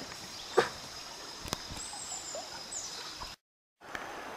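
Woodland trail ambience: a steady high-pitched insect whine over a soft background hiss, with a few short bird chirps and a couple of footfalls or twig snaps. The sound drops out completely for about half a second near the end, where the recording is cut.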